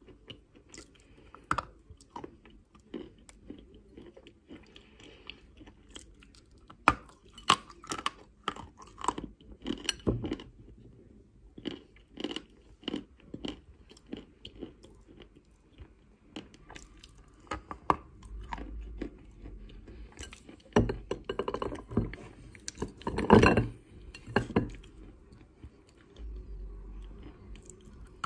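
A person chewing and biting chunks of eating chalk close to the microphone: irregular crisp crunches and clicks, with a louder run of crunching a little past two-thirds of the way through.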